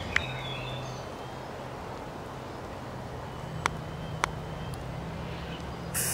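Open-air cricket ground ambience: a steady low hum under faint distant calls near the start, with a few sharp clicks partway through.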